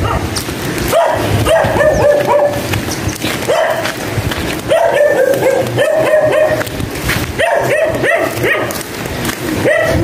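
A dog barking repeatedly, in several runs of barks about two a second.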